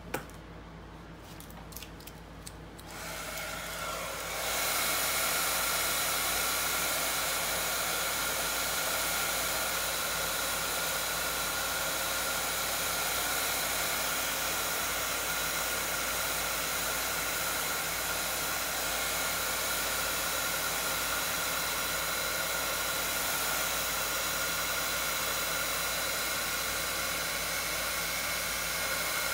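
A short click at the start, then a handheld heat gun switches on about three seconds in. It comes up to a steady whirring rush of air with a faint whine, blowing hot air over wet epoxy resin.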